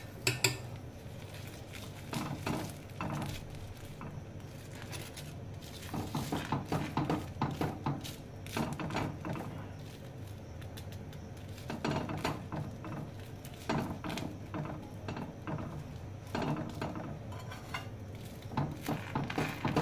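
Steel spoon tapping and scraping on an iron tawa as toasted sandwiches are pressed and turned, in short clusters of clicks and scrapes with pauses between them.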